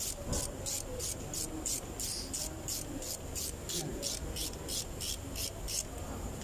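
Ratchet wrench worked back and forth, tightening a bolt on the timing chain guide tensioner of a GMC 5.3 L V8 block: a quick run of pawl clicks on each back-swing gives a steady rasping pattern of about four strokes a second.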